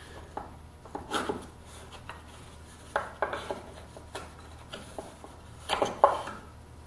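Wooden parts of a shop-built box joint jig being handled: scattered light knocks, taps and rubbing of wood on wood, with the loudest knock about six seconds in.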